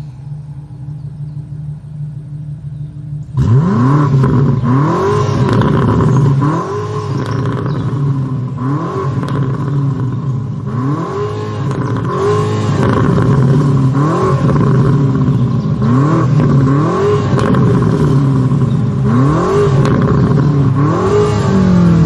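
BMW M5 engine idling, then from about three seconds in revved hard over and over, each rev climbing sharply in pitch and falling back, roughly one every second and a half.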